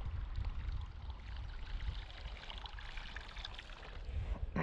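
Water trickling and splashing close to a kayak, over a low wind rumble on the microphone.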